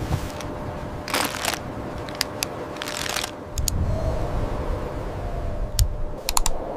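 Blizzard sound effect: a low wind rumble that swells about halfway through, two rushing gusts of hiss, and several sharp clicks and crackles.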